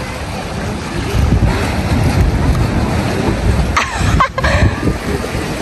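Wind buffeting the microphone over the wash of small sea waves. A brief sound with gliding pitch cuts through about four seconds in.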